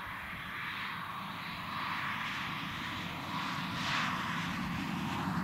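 A steady engine drone with a low rumble that slowly grows louder, like an aircraft passing in the distance.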